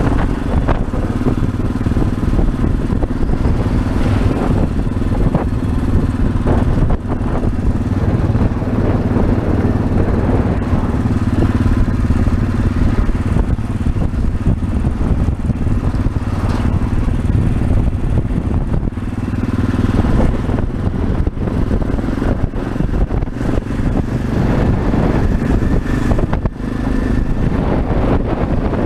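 Yamaha Ténéré 600's single-cylinder engine running at a steady cruising speed, with wind and road rumble. The engine note dips briefly and picks up again about two-thirds of the way through.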